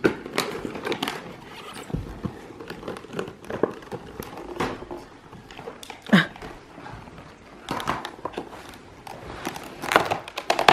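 Paper and packaging rustling and crinkling as presents are unpacked, with scattered handling clicks and knocks, and a short squeal about six seconds in.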